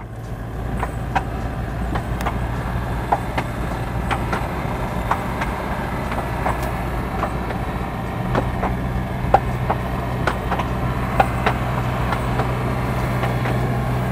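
Two Toyota Land Cruiser Prado 4x4s climbing a snowy track side by side, one on snow chains and one without. Their engines make a steady low drone, under load, that grows louder from about eight seconds in. Sharp clicks are scattered throughout.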